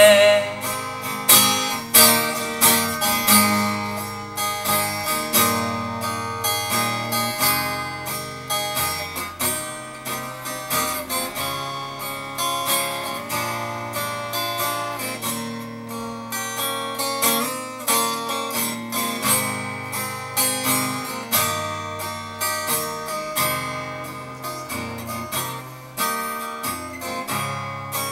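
Acoustic guitar played without singing, chords strummed in a steady rhythm.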